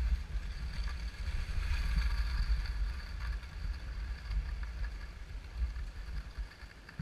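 Wind buffeting the body-worn action camera's microphone over skis hissing and scraping on groomed snow during a downhill run. The sound fades toward the end as the skier slows.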